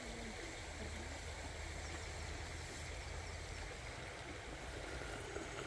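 Steady rush of a shallow stream running over a rocky bed, with a faint low hum underneath for the first few seconds.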